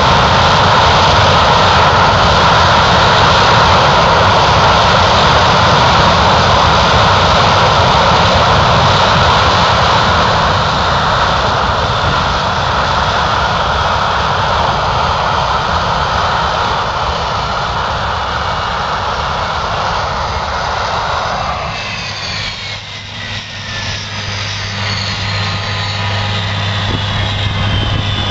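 Loud aircraft engine noise, steady for most of the time, then dropping away about 22 seconds in. After the drop, several whining tones slide in pitch and a low steady hum remains.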